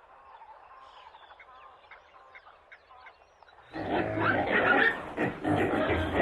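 Faint bird chirps, then about two-thirds of the way in a loud, dense animal noise starts abruptly and carries on in rough pulses.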